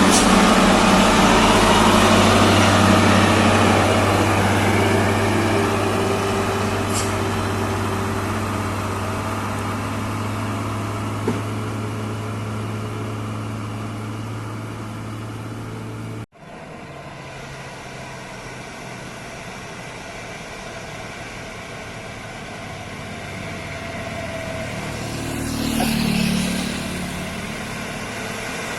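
Heavy truck diesel engine running loud and steady, slowly growing quieter as it pulls away. The sound cuts off abruptly about halfway through, and another vehicle's engine grows louder and passes near the end.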